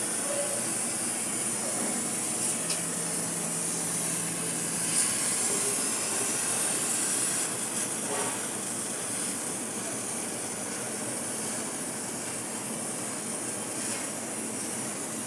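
2 kW CNC laser cutter cutting 3 mm mild steel: a steady hiss from the cutting head's gas jet and the cut, with a few faint ticks.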